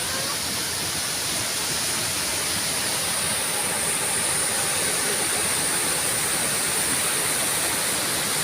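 A waterfall's falling water making a steady, even rushing noise.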